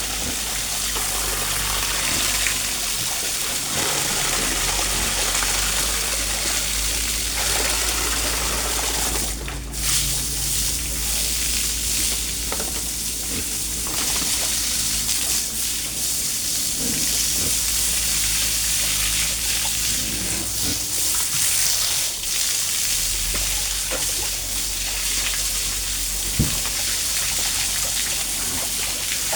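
Steady rushing hiss of running or spraying water, with a few faint knocks.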